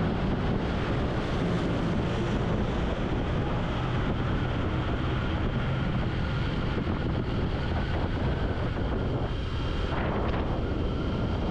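Motorcycle running steadily at road speed, with wind rushing on the rider's microphone.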